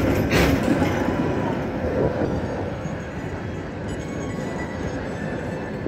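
Tram running past close by, a dense rumble of wheels on the rails with a brief loud burst of noise about half a second in; after about three seconds the sound eases to a quieter steady rumble.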